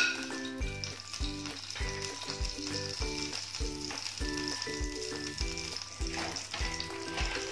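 Ghee sizzling as it melts in a hot frying pan, a steady high hiss. Background music with a steady beat of about two a second plays under it.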